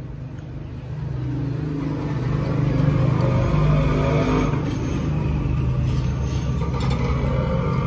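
A motor vehicle's engine running close by, getting louder over the first three seconds or so and then holding steady.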